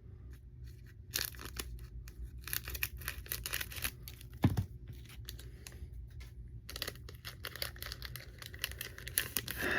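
A Pokémon TCG Vivid Voltage booster pack's foil wrapper being torn open and crinkled, in a string of short rips and rustles with brief pauses between them.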